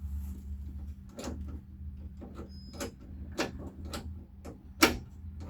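A Jeep Wrangler door latch mechanism worked by hand, giving a series of sharp metallic clicks and clacks, the loudest near the end. The latch is not returning as it should. A steady low hum runs underneath.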